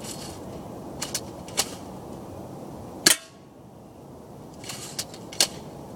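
Crosman Stinger S32P pump-action airsoft shotgun being worked and fired: a series of sharp clacks, the loudest about three seconds in.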